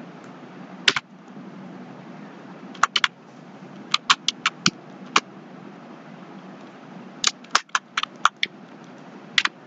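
Computer keyboard typing: short runs of a few keystrokes with pauses between, over a low steady hum.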